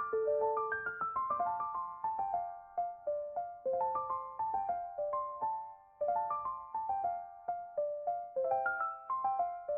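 Background music: a piano-like keyboard playing a melody of single struck notes in falling runs.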